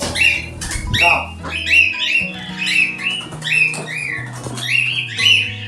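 Pet parrots squawking: repeated harsh calls, one every second or less, over background music with steady low notes.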